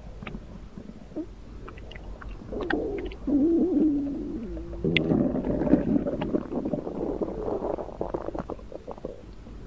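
Stomach rumbling and gurgling: irregular, wavering low sounds with scattered clicks, swelling about two and a half seconds in and dying down near the end.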